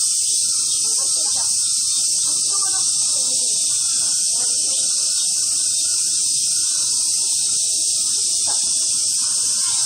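Cicadas in a steady summer chorus, a continuous high-pitched shrill hiss that does not let up, with people talking faintly underneath.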